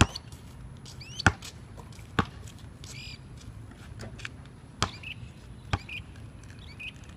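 Basketball bouncing on a concrete court: five sharp, single bounces at uneven intervals as it is dribbled. A short high chirp sounds about three seconds in.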